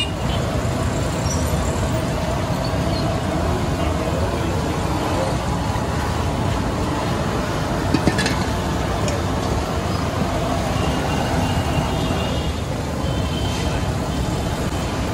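Steady din of street frying: Mysore bondas sizzling in a wide kadai of hot oil, with road traffic underneath and one sharp click about eight seconds in.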